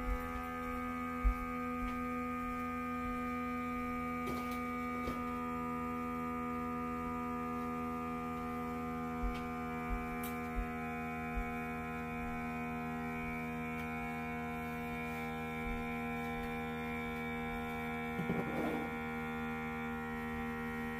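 Electric vacuum pump of a Chef Elite vacuum marinator running with a steady hum, drawing the air out of the marinating canister through its hose. A few light ticks sound over it.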